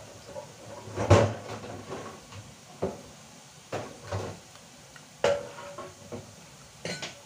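A handful of separate short knocks and clatters of a plastic fork and dishes being handled, about six in all, the loudest just after a second in.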